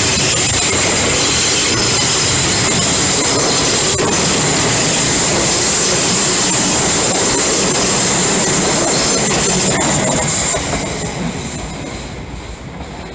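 Tobu Railway electric commuter train running close past the platform, wheels rumbling on the rails with a steady high-pitched squeal over it. The sound fades away about ten seconds in as the last car pulls off.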